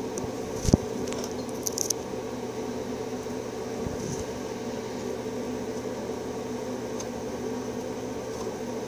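Steady mechanical hum, with a single thump about a second in and a few light clicks shortly after, from handling close to a pet mouse's cage.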